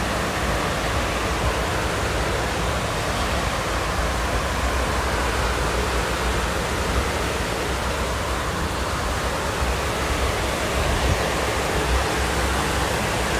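Heavy rain pouring down, a steady even hiss of a downpour.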